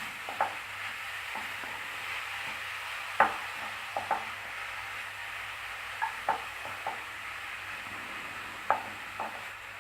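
Shredded carrot sizzling steadily in ghee in a hot pan while it is stirred, with a spoon or spatula knocking against the pan every second or so. The sizzle is the water in the carrot cooking off.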